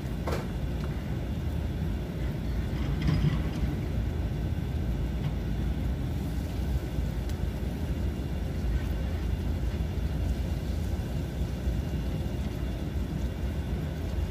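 Steady low rumble of wind buffeting the microphone, with a brief click near the start.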